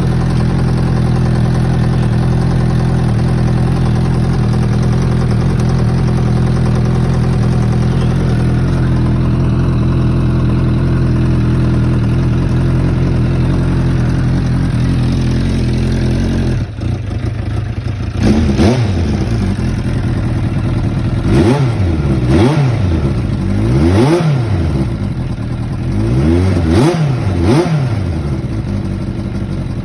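Suzuki Bandit 600 Mk1 inline-four motorcycle engine running at a steady idle with choke on. About halfway through the idle drops suddenly, then the throttle is blipped several times, the revs rising and falling quickly.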